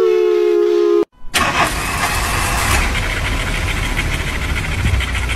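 A drawn-out high 'weee' voice, falling slightly in pitch, cut off about a second in. Then a loud, rough, continuous noise with a deep rumble and a rapid flutter.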